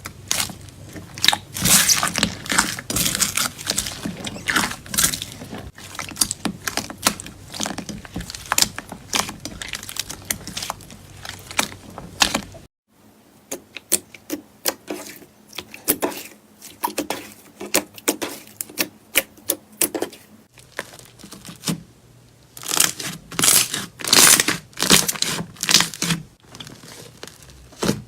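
Clear crystal slime squeezed, stretched and poked by hand, giving quick crackling pops and tearing sounds. The slime is firm and a little brittle, seemingly made without glycerin. The popping thins out to sparser, quieter clicks about thirteen seconds in and turns dense and loud again near the end.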